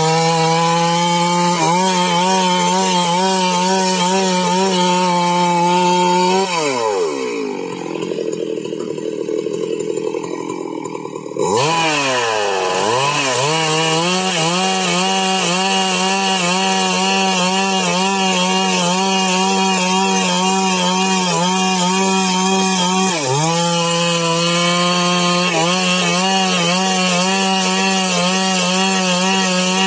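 Stihl MS 382 two-stroke chainsaw running at full throttle while ripping a log along its length. About six seconds in the engine note falls away for several seconds, then climbs sharply back to full speed. It dips briefly once more later on.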